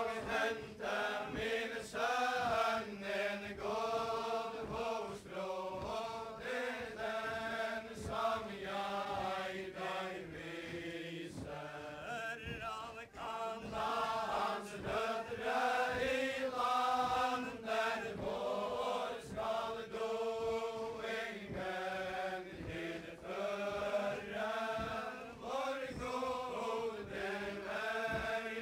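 A group of Faroese singers chanting the traditional wedding ballad unaccompanied, in the old kvæði style sung for the chain dance, on a 1959 recording. The singing runs on without a break, phrase after phrase, through one verse into the next.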